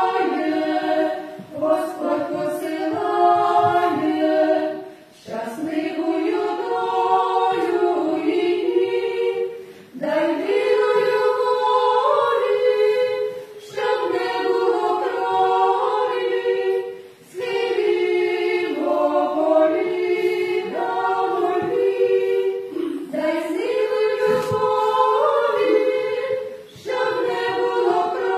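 A five-woman vocal ensemble singing a cappella in close harmony. The sung phrases are broken by short pauses for breath every few seconds.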